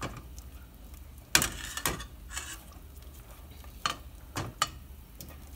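Wooden spoon stirring a thickening white sauce of roux and milk in a stainless steel pot, with about five sharp knocks of the spoon and a metal ladle against the pot, the loudest about a second and a half in. A low hum runs beneath.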